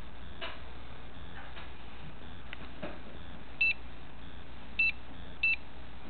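Three short, high electronic beeps in the second half, the last two closer together, from a handheld electrosmog RF meter as its buttons are pressed.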